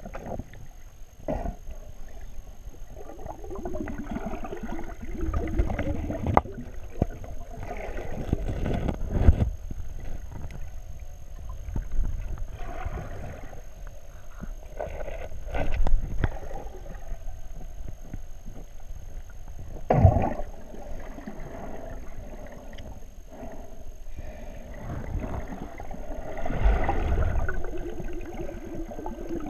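Muffled underwater sound picked up by a GoPro inside its waterproof housing as the snorkeler moves it through the water: a low, uneven swirling rumble with several knocks, the sharpest about 20 seconds in.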